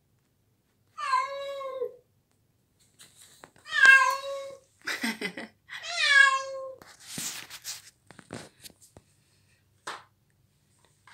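Cat meowing three times, each meow about a second long with a similar rise and a drawn-out end, followed by short scuffling noises and clicks.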